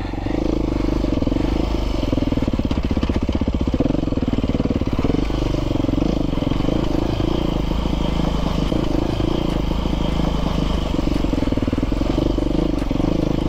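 Dirt bike engine running steadily as the bike rides along, with no sharp changes in pace.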